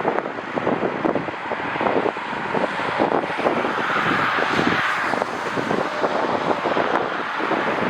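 Gusting wind buffeting the microphone in rapid, irregular thumps over the steady roar of jet airliner engines, which swells about halfway through.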